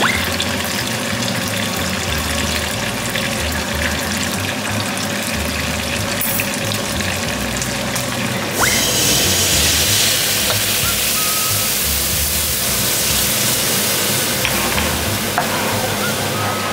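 Steady sizzle of food frying in hot oil, under background music with a regular bass beat. A little past halfway the sizzle turns suddenly louder and hissier.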